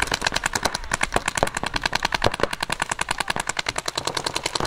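Electronic paintball markers firing rapid strings of shots, more than ten a second, in an unbroken stream.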